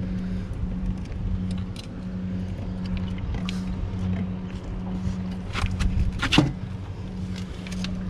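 A steady low motor hum, pulsing slightly, under scattered small metallic clicks and rattles from pliers, a fish lip-gripper and a landing net as a hook is worked out of a catfish's mouth. A louder scuffing knock comes about six seconds in.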